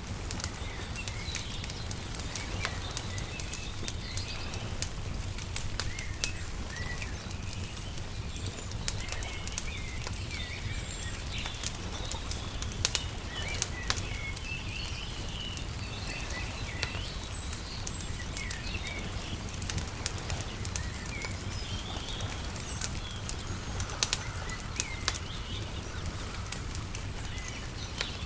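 Wood fire crackling with scattered sharp pops, while small birds chirp throughout over a low steady rumble.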